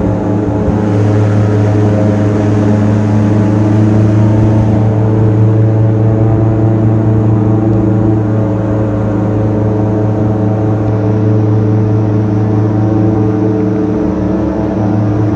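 Airboat engine and propeller running steadily at a constant loud drone, swelling slightly a few seconds in before easing back.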